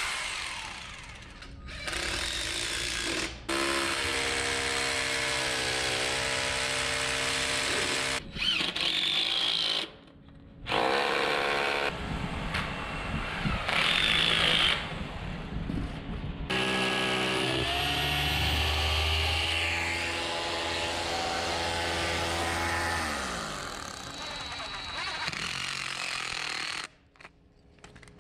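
Cordless drill running in a series of bursts, its motor pitch rising, holding and falling off, as stainless steel concrete screws are set through heavy rubber barn matting into the concrete floor.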